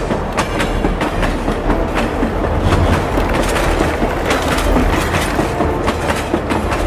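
Train running past, wheels clattering in irregular sharp clicks over a steady low rumble.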